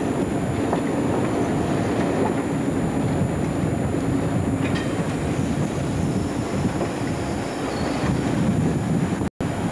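Passenger train running slowly on dock lines, heard from an open carriage window: a steady rumble of wheels on the track, with a faint brief squeal about halfway through. The sound cuts out for an instant near the end.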